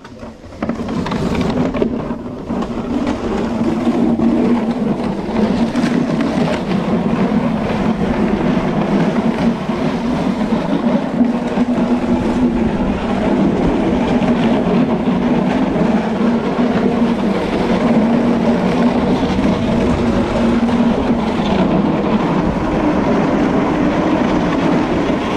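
Wooden sled sliding down the ice of a bobsleigh track: its runners scraping on the ice in a loud, steady rushing noise that builds over the first couple of seconds and keeps up throughout.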